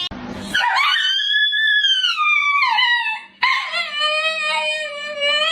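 A dog howling: two long, drawn-out howls back to back. The first rises and then falls in pitch, and the second is lower and holds steady before dropping at the end.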